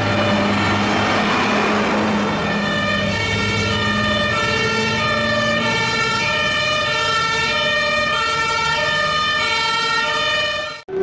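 German police two-tone siren sounding its alternating high and low notes, with a low steady hum underneath that stops about halfway through. It cuts off abruptly just before the end.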